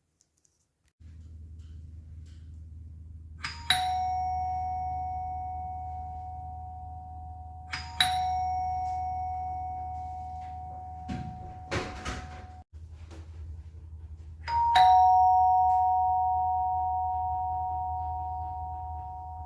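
Electromagnetic ding-dong doorbell: the solenoid's striker hits the two chime bars in quick succession, a higher note then a lower one, three times. Each ding-dong rings on and fades slowly. Around the middle there is a clatter and the lower note is cut off short. A low steady hum runs underneath.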